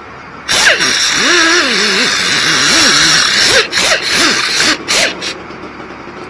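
Handheld pneumatic tool, an air ratchet, running on the trunnion bearing housing bolts of a CAT 14G motor grader: a loud hiss of exhaust air over a wavering whine. It starts about half a second in, breaks off briefly a few times, and stops about a second before the end.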